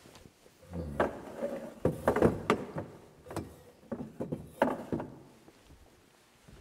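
Irregular clunks and knocks of objects being handled, several in quick succession from about one to five seconds in, with some low thumps and shuffling.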